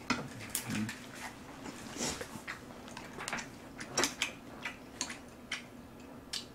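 Close-miked eating sounds: chewing and lip smacking on a mouthful of rice and pork stew, heard as irregular short wet clicks.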